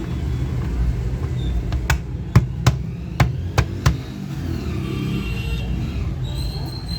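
About six sharp clicks in quick succession, roughly every half second, from a toy gun being worked, over a steady low traffic rumble.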